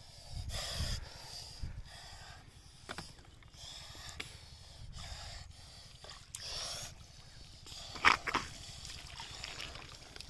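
Hands digging and squelching in wet mud and shallow muddy water, with small sloshes and splashes, and one sharper, louder sound about eight seconds in.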